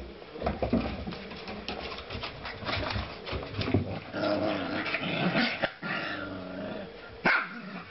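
Two husky puppies growling and whining at each other as they play-fight, with short sharp clicks from their scuffling.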